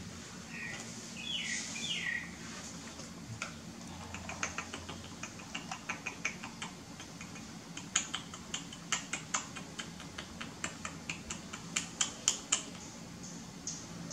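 A run of light, irregular clicks, a few a second, over a steady low hum, with a couple of short high chirps about a second in.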